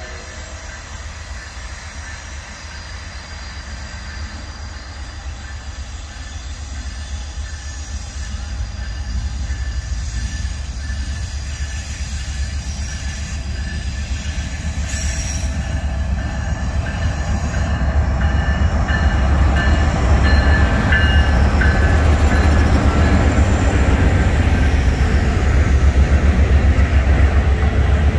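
Norfolk Southern diesel freight train approaching and passing close by: the locomotive's engine and the rumble of wheels on rail grow steadily louder. After the locomotive passes, the container-laden freight cars roll by in a loud steady rumble, with thin wheel squeal about two thirds of the way in.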